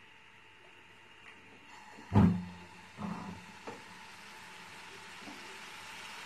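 Slotted metal spatula knocking against a frying pan three times, about two, three and nearly four seconds in, the first knock the loudest and deepest. Faint sizzling runs underneath as chopped tomatoes and green chillies fry with minced meat.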